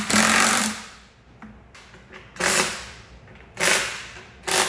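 Cordless impact driver running down flanged hex nuts on a plastic pump's liquid chamber, in four short bursts: a longer one at the start and three brief ones later.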